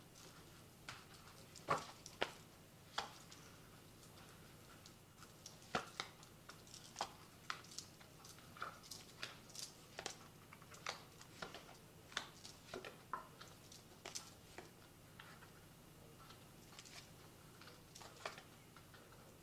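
Faint, irregular clicks and taps, about one or two a second, of a tarot deck being handled and shuffled by hand.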